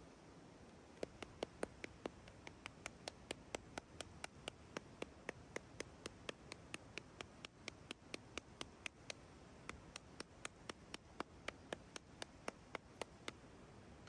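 Regular sharp ticking, about three ticks a second, starting about a second in and stopping shortly before the end, over a faint steady hiss.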